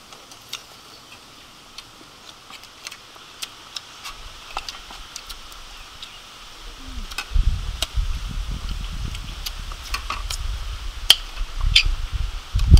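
People eating at a table: spoons clicking against plates and chewing, heard as many short sharp clicks. A low rumble comes in about seven seconds in and grows louder near the end.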